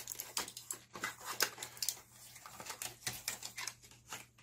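Plastic-and-foil blister strips of capsules being handled and flexed in the hand: a run of irregular light clicks and crackles.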